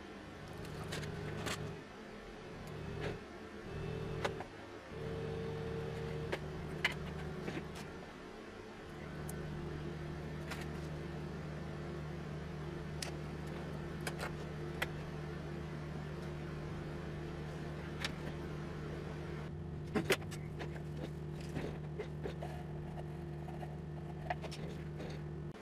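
Small electric motor humming, stopping and starting several times, then running steadily, with scattered sharp clicks and taps.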